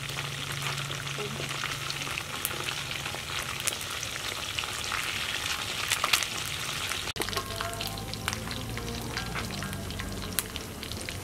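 Whole frogs deep-frying in hot oil in a metal wok, sizzling and crackling steadily with many small pops.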